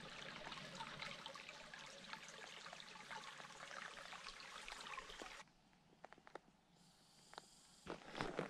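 Faint trickling, lapping water. It cuts off abruptly a little over five seconds in to near silence with a few clicks, and footsteps begin near the end.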